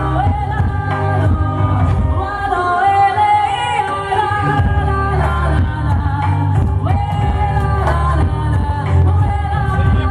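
Live band music with a singer, loud, over a heavy bass line.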